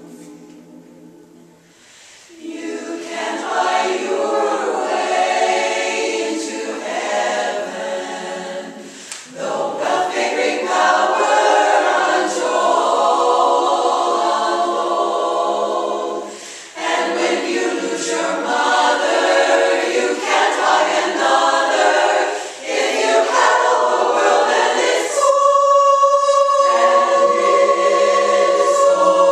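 Women's a cappella chorus singing in close harmony. After a brief pause they come in about two seconds in, with short breaths between phrases, and finish on a long held chord near the end.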